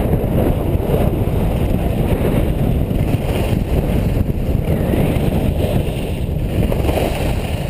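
Wind buffeting the action camera's microphone during a ski descent, mixed with skis sliding over groomed snow: a steady, dense low noise.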